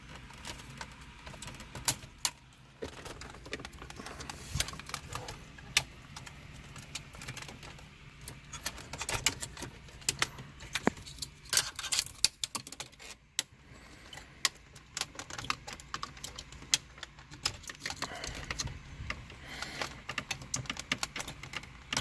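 Irregular clicks and rattles of a car radio being handled as the wiring plugs and antenna cable are unplugged from its back.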